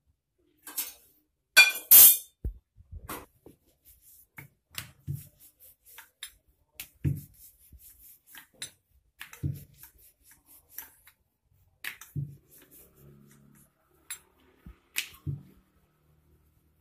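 Wooden rolling pin working a round of dough on a marble rolling board: irregular clicks and knocks of wood on stone with a few duller thumps, the loudest clatter about two seconds in.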